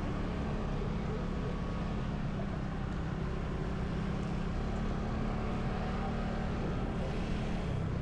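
Motorcycle engine running steadily while riding, with wind and road noise rushing over the helmet-mounted camera's microphone.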